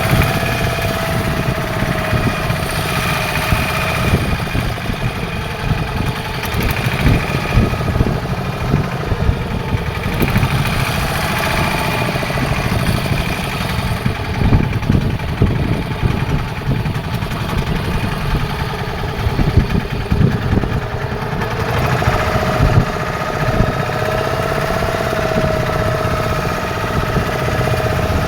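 Fishing boat's engine running steadily: a low rumble with a whine on top that fades in the middle and comes back near the end.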